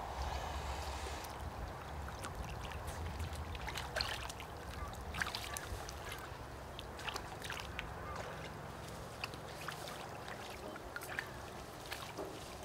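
Eurasian otter chewing a catfish: irregular wet crunching bites and clicks, the loudest about four and five seconds in, over a steady background of running water.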